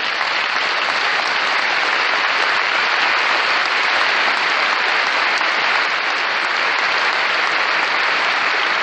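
Large audience applauding steadily, a dense even clapping that builds a little in the first second and then holds.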